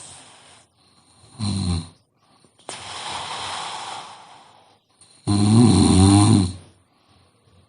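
A sleeping woman snoring: a short snort about a second and a half in, then a long airy breath, then a loud, long rattling snore about five seconds in.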